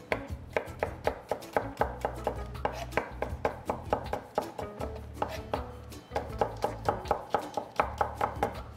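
Chef's knife cutting carrot into sticks on a wooden cutting board: quick, even knocks of the blade on the board, about four a second, with a brief pause about six seconds in.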